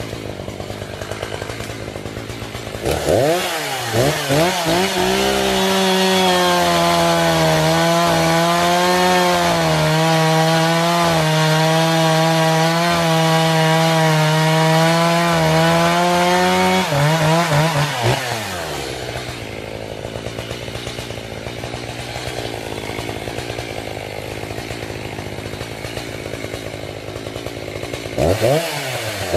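Echo CS-590 two-stroke chainsaw idling, then revving up about three seconds in and running at full throttle through a cut for about fourteen seconds, its pitch sagging slightly now and then under load. It drops back to idle and revs up again near the end.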